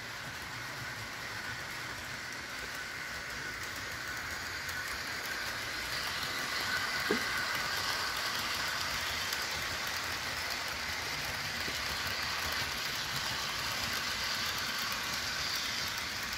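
Model train running on sectional track: the steady whir of the locomotive's small electric motor and its wheels rolling on the rails. It gets louder about six seconds in as the train passes.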